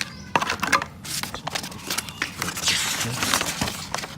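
Crinkling and rustling of something being handled, with scattered sharp clicks and knocks and a longer rustle near the end.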